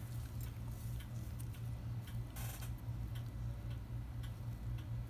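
Faint light ticks and clicks, unevenly spaced, over a steady low hum.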